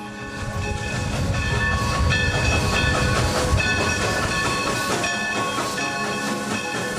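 A train running on rails, its low rumble swelling over the first second and then holding steady, with music playing over it.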